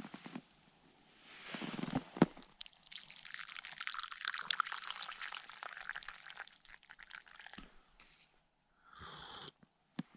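Hot coffee poured from a metal kettle into a wooden kuksa cup: a splashing, trickling pour lasting about five seconds. It follows a sharp knock about two seconds in.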